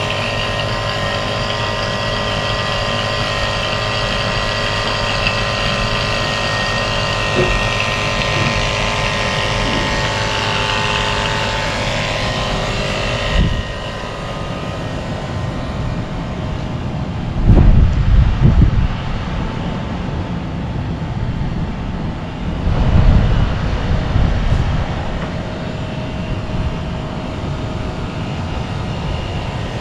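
Air-conditioning vacuum pump running steadily, pulling a vacuum on the refrigerant lines: a constant motor whine with several fixed tones. About halfway through the sound turns duller, and two loud low rumbles come a few seconds apart after that.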